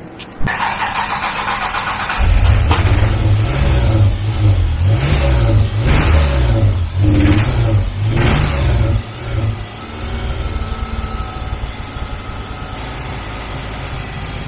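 Ford Explorer's 4.0-litre V6 running while it burns off a Seafoam intake treatment, its revs rising and falling unevenly for several seconds. It settles to a quieter, steadier idle about ten seconds in.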